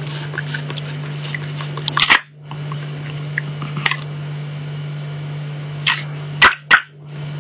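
A cat biting and batting at a catnip ball on a hand-held plastic dinosaur toy: a handful of sharp clicks and snaps, the two loudest close together near the end, over a steady low hum.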